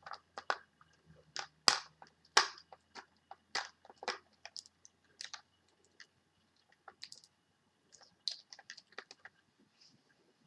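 Irregular sharp clicks and crinkles of a taped makeup package being handled and picked at, with a quieter stretch in the middle.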